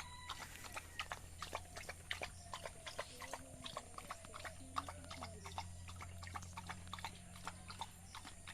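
Dog eating rice: quick, irregular clicks of chewing and mouthing food, several a second.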